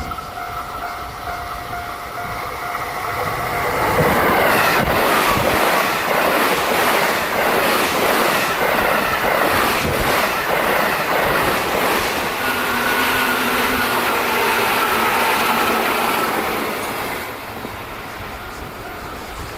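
A level-crossing warning bell rings with a steady repeating tone. About four seconds in, a train passes loud and close, with the clickety-clack of wheels over the rail joints and a thin wheel squeal midway. It fades away near the end.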